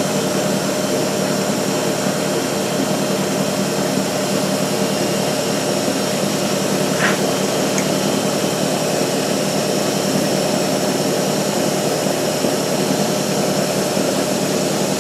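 Milling machine spindle running steadily while a ball-nose end mill cuts a shallow groove into the round workpiece.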